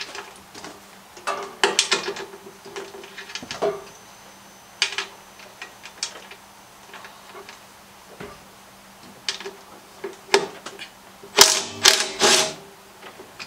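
Ratchet wrench and socket extension loosening fuel-tank mounting bolts on a Honda GX270 engine: scattered metal clicks and clinks, with a louder run of clanks near the end.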